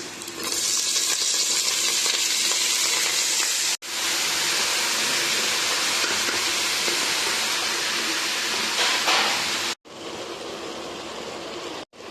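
Food sizzling as it fries in hot oil in a pan: a steady hiss, broken by short silent cuts about four and ten seconds in, and quieter over the last two seconds.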